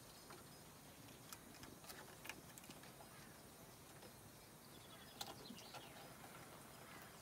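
Faint, scattered clicks and scratches of a Bengal cat's claws gripping dry weathered wood as it climbs a log, a few sharper ticks standing out against near silence.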